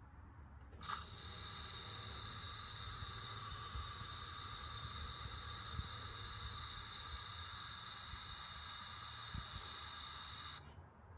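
Air Wick aerosol room-freshener can spraying in one long, steady hiss that starts abruptly about a second in and cuts off near the end.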